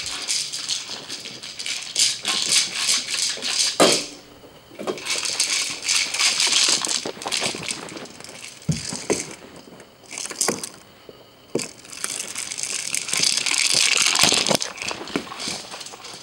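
Rattling and scuffing in bursts with short pauses as a corgi puppy pushes a plastic toy ball around on carpet.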